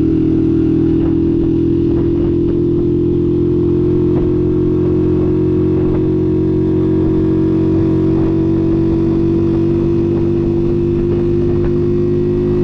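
Motorcycle engine pulling steadily in third gear up a slope, its pitch creeping slightly higher. The bike is a new engine breaking in, and it now manages this climb in third gear.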